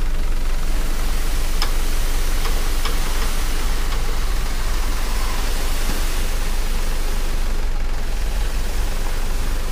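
Steady rushing noise as a load of soil slides out of a tipped dump-truck bed, with a few faint clicks in the first few seconds.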